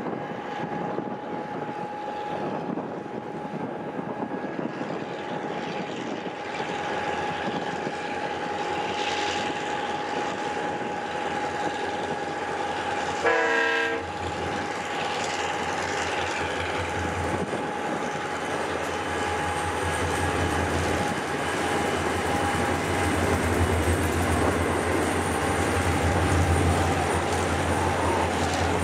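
Diesel freight train running, its low engine rumble growing louder toward the end, with a steady high tone underneath. About halfway through, the locomotive horn gives one short blast, the loudest sound here.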